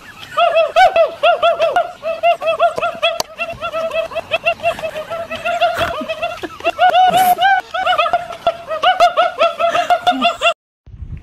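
High-pitched, rapid laughter: a long run of quick giggling notes at several a second, cutting off suddenly near the end.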